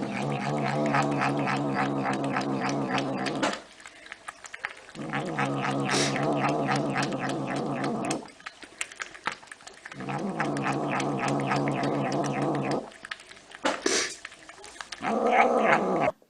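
A cat yowling: three long, drawn-out, low calls, each held for about three seconds with short pauses between, then a shorter call near the end.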